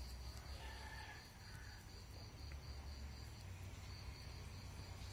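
An insect chirping in a fast, even pulse of one high note, with a short break about three and a half seconds in, over a faint low hum.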